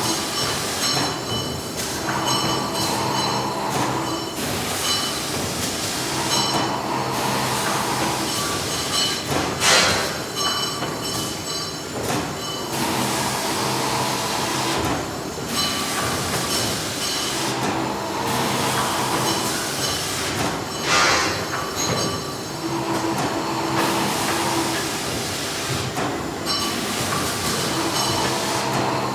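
Factory machinery running continuously: a dense mechanical clatter with steady high whining tones, swelling and easing every few seconds. A brief louder hissing screech cuts through twice, about ten and twenty-one seconds in.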